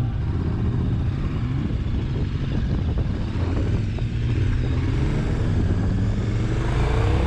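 Motorcycle engine running on the road under a steady rush of noise; over the last second or so its pitch rises as it accelerates.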